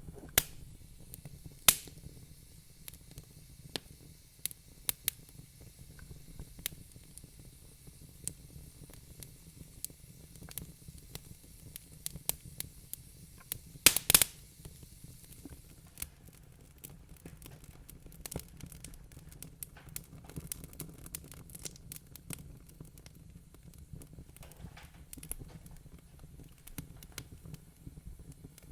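Real wood fire crackling in a fireplace: irregular sharp pops and snaps over a low steady rumble of the flames, with a loud pop about two seconds in and a quick cluster of loud snaps about halfway through.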